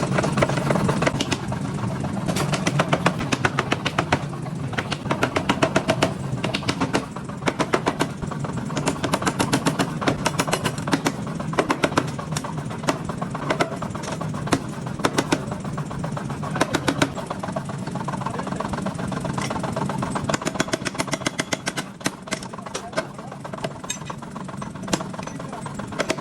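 Sharp hammer blows on metal, struck irregularly and often in quick runs of several a second, over a steady machine hum.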